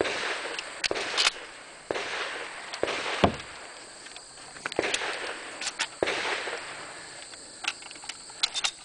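Shotgun firing a string of shots, roughly one a second, each bang followed by a short echo, with small clicks between them; the loudest shot comes a little over three seconds in.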